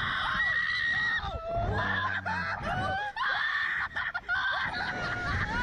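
Slingshot ride riders screaming in flight: a woman's long, high-pitched screams, several in a row, with a man's lower laughing shouts between them.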